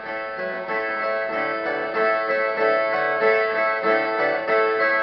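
Two Brazilian violas playing the instrumental baião between one singer's stanza and the other's, a plucked melody over ringing chords, getting louder over the first couple of seconds.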